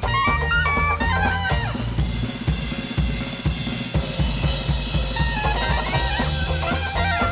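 Live traditional New Orleans jazz band playing. About a second and a half in, the horns drop out for a drum-kit break of snare, bass drum and cymbals over the walking bass, and the horns come back in about five seconds in.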